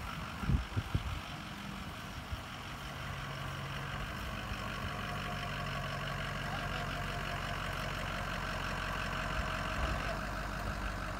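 Diesel engine running steadily, with a few low thumps in the first second.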